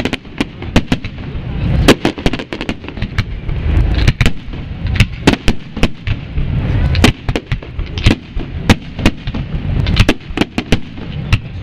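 Aerial fireworks display: many sharp bangs of shells bursting in quick, irregular succession over a continuous low rumble.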